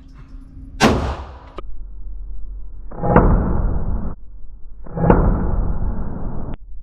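A single 9mm shot from a compensated Glock 19C pistol about a second in. Then, about three and five seconds in, two deep, drawn-out booms with the treble cut off: gunshots slowed down for slow-motion replay.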